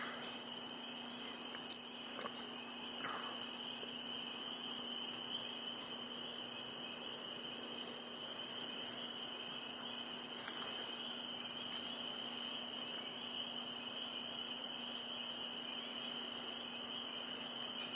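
Night chorus of marsh frogs, spring peepers among them: a steady high-pitched chorus with a few short separate calls in the first few seconds.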